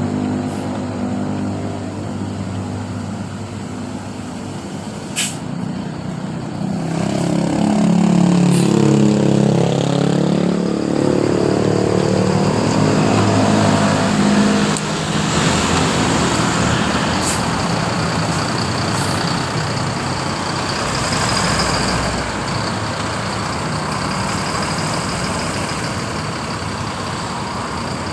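Indonesian bus 'telolet' horn: a set of musical air horns sounding a tune of changing notes, loudest in the first half. It then gives way to steady vehicle and road noise.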